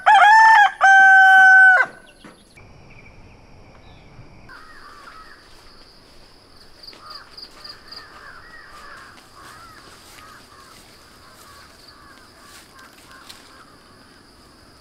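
A rooster crows loudly: a short first note, then one long held note, about two seconds in all. Faint birdsong and a steady high thin whine follow.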